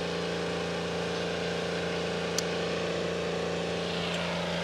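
Steady mechanical hum of a running machine, even and unchanging in pitch, with one faint click about halfway through.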